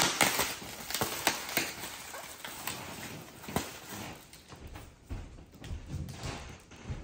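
Bubble wrap and plastic air pillows crinkling and crackling as a wrapped package is handled, the crackles thinning out over the first few seconds. A few soft low thumps follow near the end.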